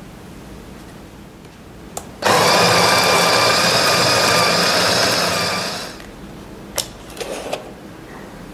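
A click as the GRIND button is pressed, then the Wilfa Svart Nymalt electric coffee grinder's motor runs for about three and a half seconds, grinding coffee beans, and winds down. A few light clicks follow near the end.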